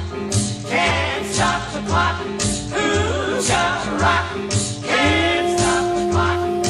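1950s pop record: a woman singing over a band with a steady beat, holding one long note from about five seconds in.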